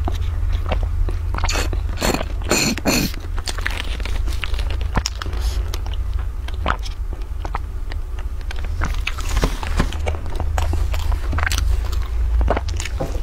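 Close-miked mukbang drinking and eating sounds: sips and slurps of a milky drink through straws from a bundle of small plastic bottles, with scattered mouth clicks and a cluster of sharp clicks about two seconds in. A steady low hum sits underneath.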